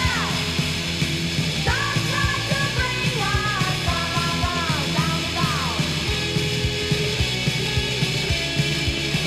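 A 1980s noise-pop recording by a rock band: a steady drum beat under bass and guitars. A high melody line of sliding notes comes in a couple of seconds in and fades out past the middle.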